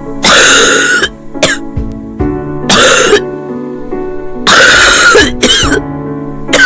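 A child coughing, four loud coughs over steady background music: the cough of bronchitis.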